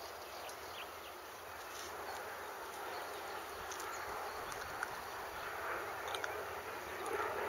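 Open-air hillside ambience: a steady rushing hiss that swells a little near the end, with a few short, faint high chirps and ticks scattered through it.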